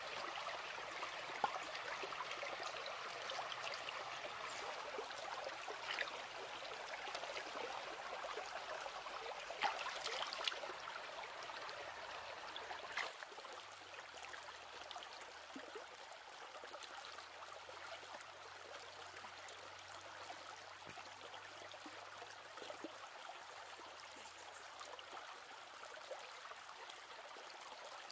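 Shallow stream trickling steadily, louder in the first half and softer after about thirteen seconds in, with a few sharp clicks scattered through it, several close together about ten seconds in.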